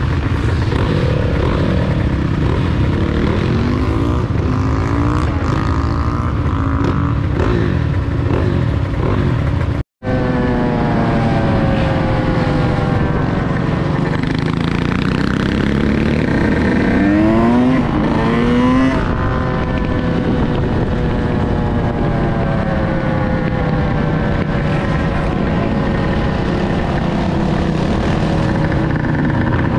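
Engines of a pack of quad ATVs and dirt bikes riding along a street, their pitch rising and falling as they rev and shift, with sharp rising revs a little past halfway, over a heavy low wind rumble. The sound drops out for a moment about ten seconds in.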